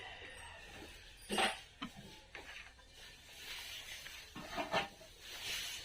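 Scattered light clicks and taps of small metal tools against a circuit board while a tiny five-pin IC is hand-soldered in place, the sharpest knock about a second and a half in and two more near the end.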